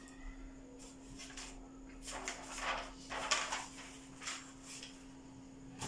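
A handful of short, irregular scuffs and rustles from a person moving about and handling things at a whiteboard, over a steady electrical hum.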